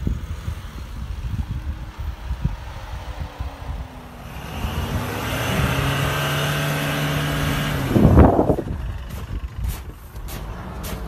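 Low rumble of a pickup truck driving over grass, with wind on the microphone. About four seconds in, a Toyota Hilux's four-cylinder diesel engine revs hard and holds steady for several seconds while the truck works through snow. Then comes a loud short burst, followed by a few sharp clicks.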